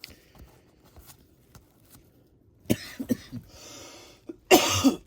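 A man with a cold coughing: several sudden coughs from a little past halfway, a breathy rasp between them, and the loudest cough near the end.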